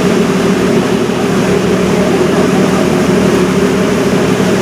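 River cruise boat's engine running with a steady, loud drone, heard from on board along with the rush of the boat underway.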